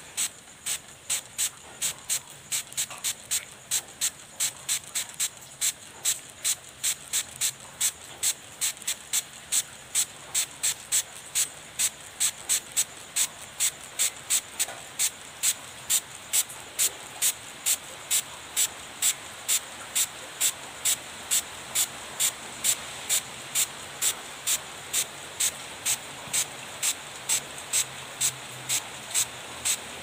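Plastic trigger spray bottle of water squirted over and over in quick, even strokes: short hissing sprays about two to three a second, over a steady hiss that grows slowly louder.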